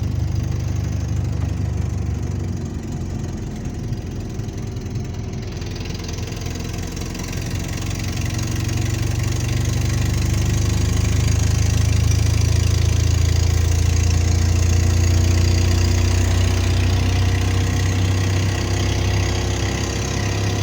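Vehicle engine running steadily at idle, with its speed and loudness rising a little about a third of the way in and then holding.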